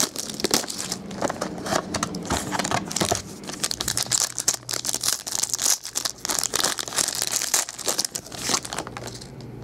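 Cellophane shrink-wrap being peeled off a trading-card box, then a sealed foil card pack torn open: a dense, irregular crinkling and crackling of plastic that eases off near the end.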